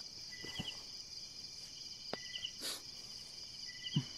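Night insect chorus: a steady high-pitched drone with crickets chirping in short repeated trills. A couple of faint sharp clicks and a soft low knock near the end.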